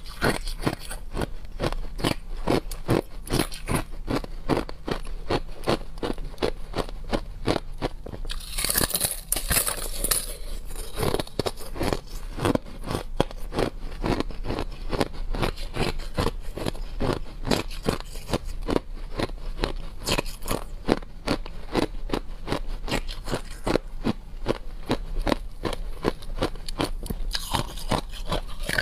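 Shaved ice refrozen into a brittle, lacy block being bitten and chewed: a steady run of crisp crunches, several a second, with a brief louder, hissier crackle about nine seconds in.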